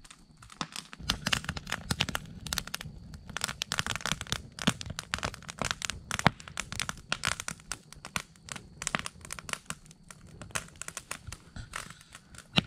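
Hollowed-out cedar trunk burning fiercely, its wood crackling and popping in dense, irregular snaps over a low steady rumble, with one sharp, loud pop near the end.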